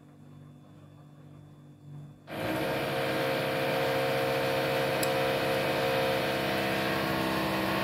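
A neighbour's electric drill starts suddenly a little over two seconds in, after quiet room tone, and then runs steadily as a loud mechanical drone with several steady tones.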